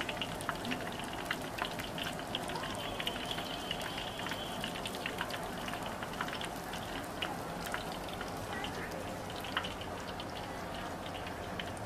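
Pieces of food deep-frying in a wok of hot oil: a steady sizzle crackling with many small sharp pops.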